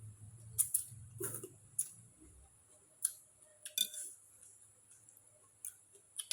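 Close-up eating sounds: about ten irregular, sharp, crisp crunches and clicks from chewing food.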